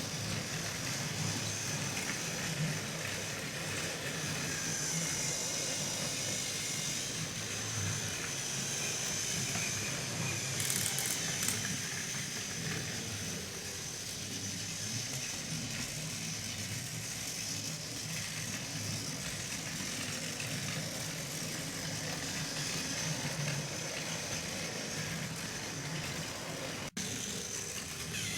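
Motorized TrackMaster toy train engine running along plastic track: a steady battery-motor whine with the rattle of the plastic wheels and track. There is a brief louder patch about eleven seconds in.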